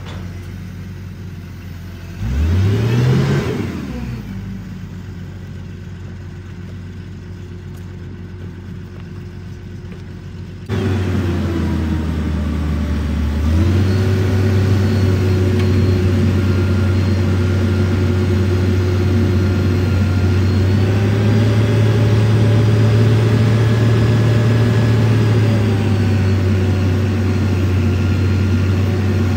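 Boom truck crane's engine running steadily, its speed rising for several seconds at a time as the crane is worked. About two seconds in, a brief engine rev rises and falls.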